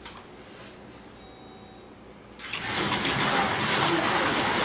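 Low room noise, then about two and a half seconds in, 1/43-scale Artin slot cars set off around the track: a sudden, steady, loud whirring hiss from their small electric motors running on the rails.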